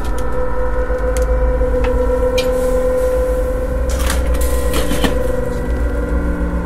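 A steady droning hum over a low rumble, with a few sharp clicks and a clatter about four to five seconds in as a glass lid is set onto a stainless steel stockpot.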